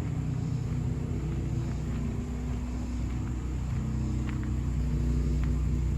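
An engine running steadily with a low rumble, with a few faint, scattered ticks over it.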